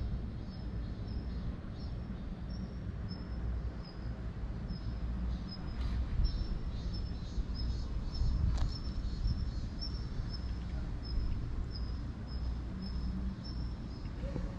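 Outdoor ambience: a steady low rumble with a short, high chirp repeating about twice a second.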